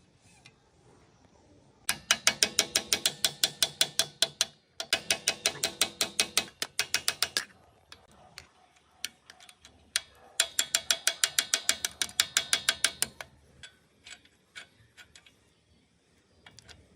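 A ratchet wrench clicking quickly in three runs of a few seconds each, about eight clicks a second, as a fastener is turned during the engine overhaul. A few separate knocks fall between and after the runs.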